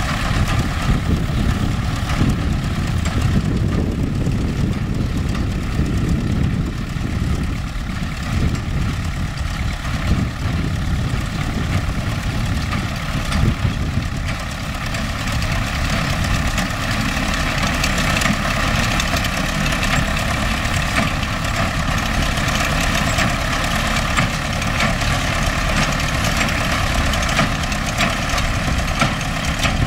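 Diesel engine of an MTZ-5LS tractor running steadily under load while driving a hay baler, with a continuous mechanical clatter of the working machinery.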